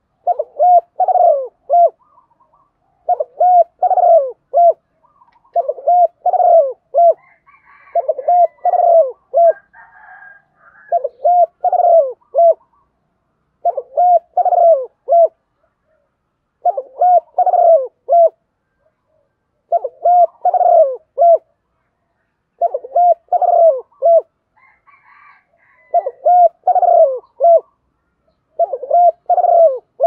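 Spotted dove cooing, a phrase of three or four deep notes repeated about every three seconds, about ten times.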